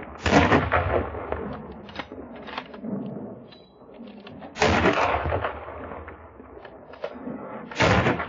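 Three gunshots fired at wild boar, the first just after the start, the next about four seconds later and the last about three seconds after that, each a sharp loud bang with a rolling echo dying away over a second.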